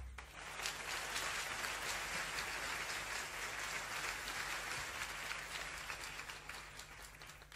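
Audience clapping, faint and even, as a song ends; the applause dies away near the end.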